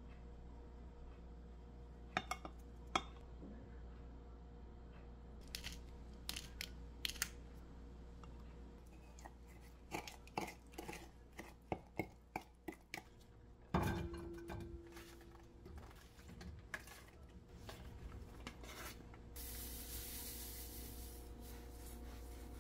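Wooden spoon scraping, clicking and tapping against a glass measuring jug while stirring a thick chili-paste sauce, with one sharp clink about 14 seconds in that rings briefly. Near the end a steady high hiss sets in.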